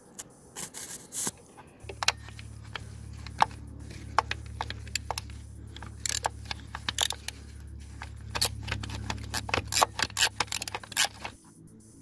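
Ratchet wrench clicking and metal tool clinks, irregular, as the crankshaft position sensor's bolt is undone with a socket. A steady low hum sits underneath from about two seconds in until near the end.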